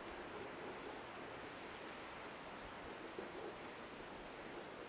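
Faint steady wash of sea surf from below the cliffs, with a few faint, high bird chirps now and then.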